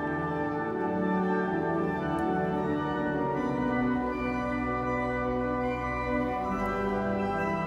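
The Cavaillé-Coll pipe organ of Sint-Niklaaskerk playing slow held chords that shift every second or two, with a deep bass note sustained underneath for a few seconds midway, heard across a large stone church.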